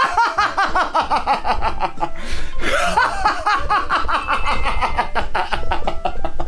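A man laughing hard and loud in a fast string of 'ha-ha-ha' bursts, done on purpose as a trick for raising voice volume, with a short break for breath about two seconds in. Background music with a steady beat plays under it.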